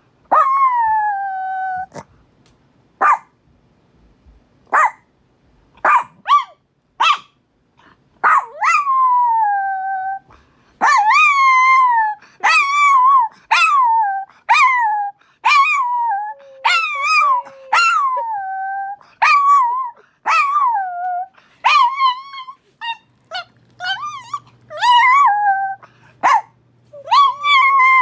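Small Chihuahua howling, set off by a tornado siren. It opens with one falling howl and scattered short yips, then from about ten seconds in gives a near-continuous run of high, wavering howls that slide down in pitch.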